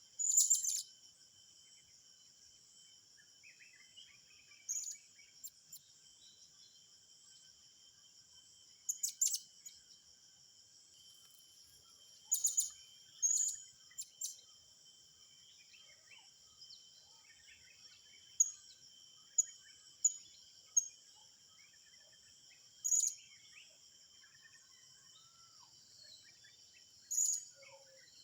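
Short, sharp, very high bird calls every few seconds, some in quick runs of two to four, over a steady high-pitched insect drone.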